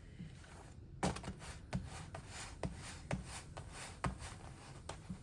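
Handling noises from cooking flatbread in a pan: about six light, irregularly spaced knocks with some rubbing in between.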